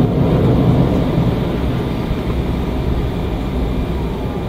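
Cabin noise inside an Embraer E190 airliner rolling on the ground: the steady sound of its twin GE CF34 turbofan engines over a heavy low rumble. It eases off slightly toward the end.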